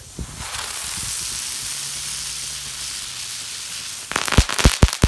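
Crackling ground bloom flower firework spinning on the ground with a steady hiss, then in its last second a quick run of about half a dozen sharp cracks as the crackle effect goes off.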